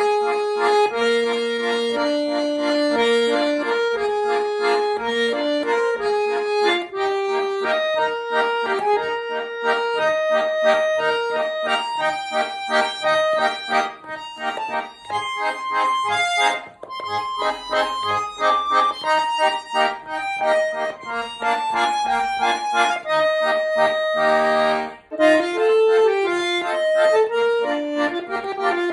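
Schwyzerörgeli, the Swiss diatonic button accordion, playing a lively Swiss folk tune: a quick melody over held chords, with a brief break near the end before the playing picks up again.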